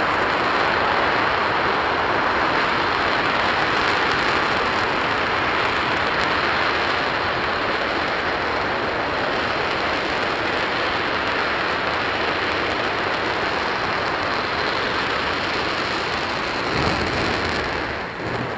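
RS-25 liquid-hydrogen/liquid-oxygen rocket engine firing on a test stand: a loud, steady roar. Near the end there is a brief louder burst, and then the sound drops away.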